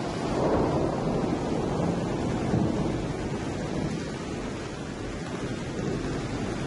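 Steady rain with low rolls of thunder, a recorded storm effect opening a song about rain.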